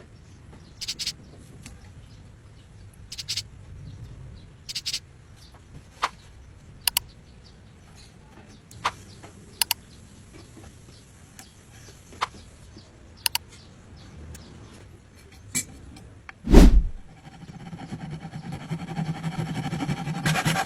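Woodworking hand work: scattered light taps and clicks, one heavy thump about three-quarters of the way through, then quick rubbing strokes of a rasp or sandpaper on wood building up near the end.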